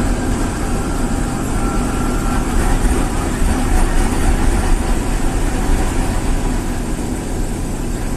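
Heavy truck engine running with a steady deep drone, heard from inside a truck cab.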